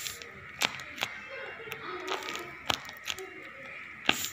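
Homemade paper squishy squeezed in the hands, its paper crinkling in a few sharp crackles.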